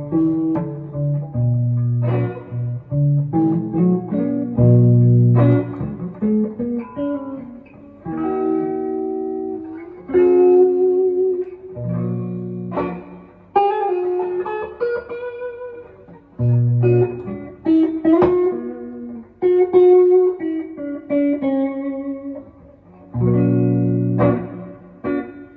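Electric guitar played through a Fender Princeton amplifier: a phrase of picked single notes and chords over held low notes, each note starting with a sharp attack.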